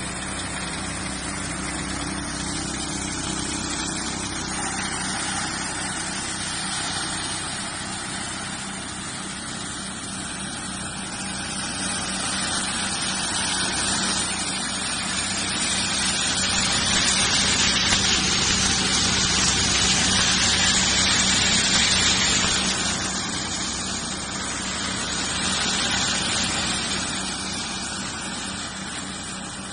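A 5TGS-60-2C multi-crop thresher running steadily with a constant hum. A louder rushing hiss builds partway through, then eases off again.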